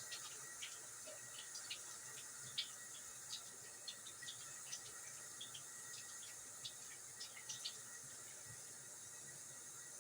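Kitchen tap running at the sink: a faint steady hiss of water, with many small splashes and drips ticking irregularly through it.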